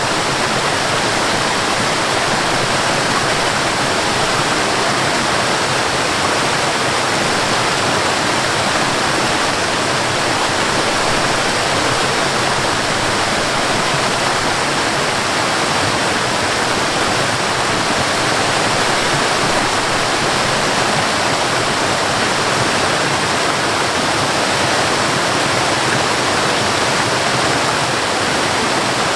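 Waterfall: water falling from a height and rushing steadily, a dense even roar of white water without pause or change.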